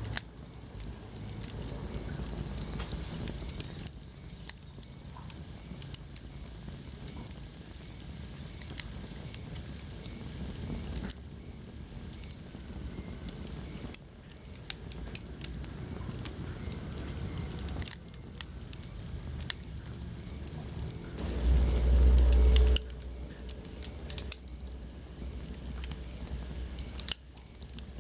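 Wood fire crackling, with frequent sharp pops and snaps over a low steady rumble. About 21 seconds in, a loud low rumble lasts a second and a half.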